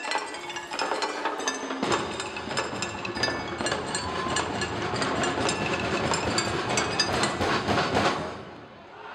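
Fast wooden percussion clacking in an even rhythm, with a low drum coming in about two seconds in; it breaks off about eight seconds in.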